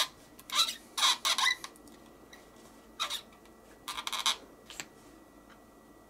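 Plastic opening pick scraping and rubbing along the seam of a Surface Laptop Studio 2's chassis as the bottom cover is pried open. It comes in several short scrapes, the loudest in the first second and a half, with a few more around three and four seconds in.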